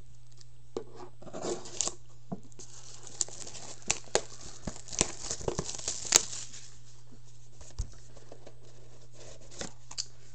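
Plastic wrap being torn and crinkled off a sealed hockey card box, with scattered sharp rips, rustles and taps of the cardboard box being handled. A faint steady low hum runs underneath.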